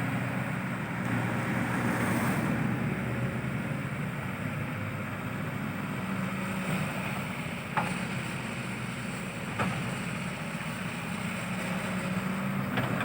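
Hydraulic excavator's diesel engine running steadily while digging, with two short knocks past the middle.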